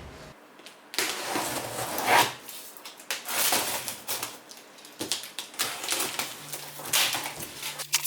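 A PC case being unpacked: cardboard box and plastic or foam packing rustling and scraping in a series of swishes, with a few sharp clicks.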